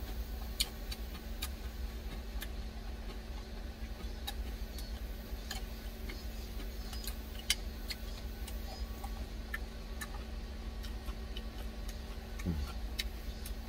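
A plastic spoon clicking and scraping against a glass food container as the last of a meal is scooped up, in irregular sharp taps, over a steady low hum. A brief falling sound comes near the end.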